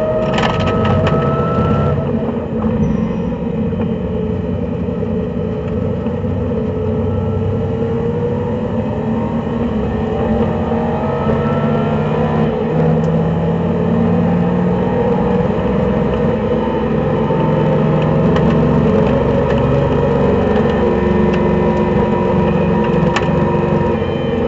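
Race car's engine heard from inside the cabin while lapping a circuit, running hard under load with its pitch rising and falling as the car accelerates and slows for corners, over a steady hiss of road and wind noise.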